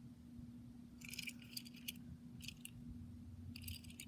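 Faint clicks and light rattles from a die-cast toy car being handled and turned over in the hand, in three short clusters, over a steady low hum.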